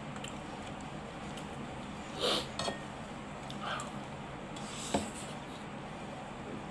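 Eating sounds over a steady low hum: a few short mouth and chewing noises, and a sharp click of a utensil on a plate a little before the five-second mark.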